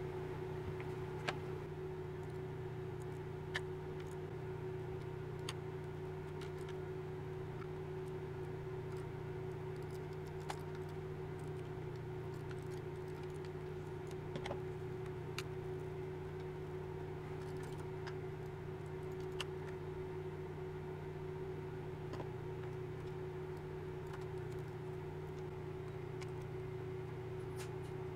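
Steady low background hum with a faint held tone. Over it come scattered light clicks and taps, about eight in all, as hands handle a plastic Logitech G502 Hero mouse and its cable and work at its underside with a small tool.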